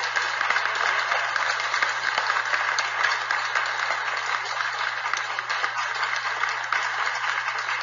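Crowd applause sound effect: many hands clapping in a dense, steady patter.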